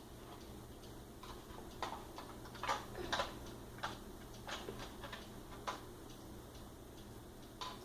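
Scattered light clicks and rustles, about eight at uneven intervals, from handling a Wheelock Exceeder horn strobe and its packaging; the alarm itself is not sounding.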